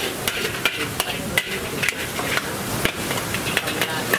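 Metal spatula knocking and scraping against a wok during stir-frying, in irregular clanks about two to three a second over a steady hiss.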